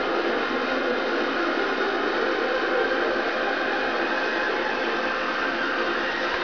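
A steady hiss with no speech or music.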